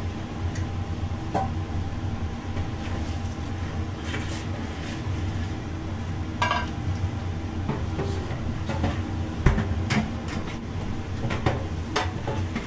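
Restaurant ambience: a steady low machine hum with scattered clinks and knocks of dishes, one louder knock about nine and a half seconds in.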